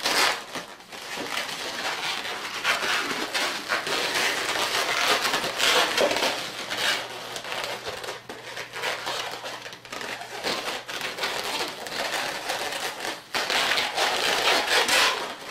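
Latex modelling balloons rubbing and crinkling against each other and the hands as they are twisted and wrapped into a chain of bubbles, in irregular surges.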